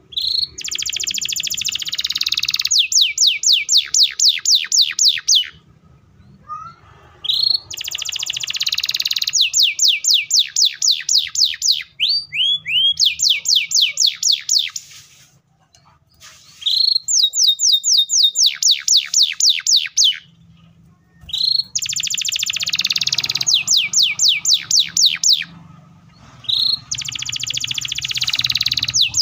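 Canary singing loudly in repeated, near-identical phrases, about five of them. Each phrase is a short rising note, then a dense buzzy roll, then a fast run of falling whistled notes at about five a second.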